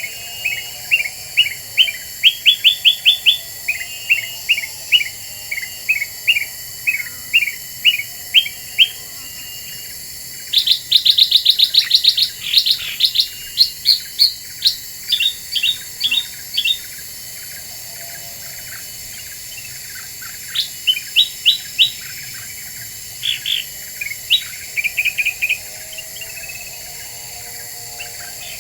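Kutilang emas, a bulbul, calling in quick runs of short, sharp chirps, several a second, with brief pauses between the runs. It is the busy, excited song used as a lure call.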